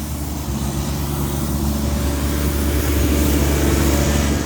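A motor vehicle running close by on a snowy city street. Its engine and road noise make a steady low rumble that grows louder over the first three seconds or so.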